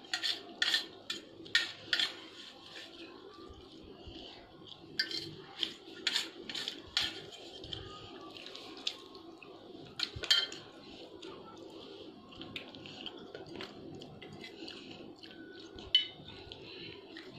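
Metal spoons clinking and scraping against steel plates as rice is eaten, in short flurries of sharp clicks, over a low steady hum.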